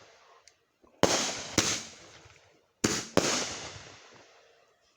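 Firework reports from a Whiskey Business consumer firework: four sharp bangs in two pairs, about a second in and near three seconds, each fading out over about a second.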